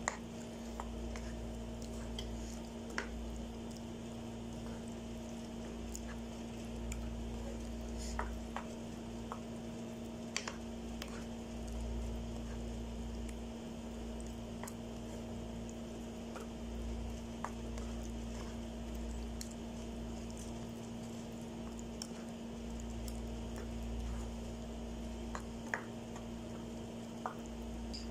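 Wooden spatula stirring a thick, saucy chicken filling in a nonstick pan: wet squelching with scattered light knocks of the spatula against the pan, over a steady low hum.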